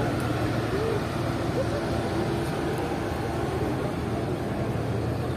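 A line of cars crawling past at walking pace, a steady engine and tyre hum, with the murmur of a crowd talking around them.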